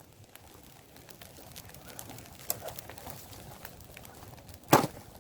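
Axe chopping wood: one loud strike near the end, over faint scattered crackles and clicks.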